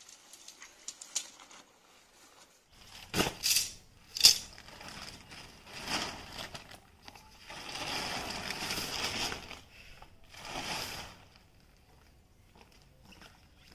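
Tent fabric and gear being handled: intermittent rustling and crinkling, sharpest about three to four seconds in, with a longer rustle around eight to nine seconds.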